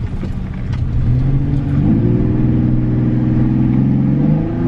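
Chevy Colorado pickup's engine accelerating under throttle, heard from inside the cab, with the louder intake sound of a newly fitted aFe cold air intake. The engine pitch rises about a second in, again near two seconds, holds, and rises once more near the end.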